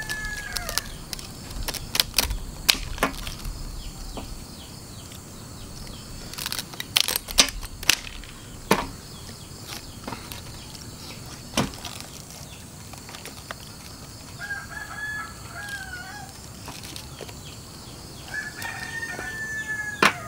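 A rooster crowing three times: once ending about a second in, once about three-quarters of the way through, and once near the end. In between come sharp cracks and knocks, loudest in the first half, as a durian's spiky husk is split and prised open with a knife.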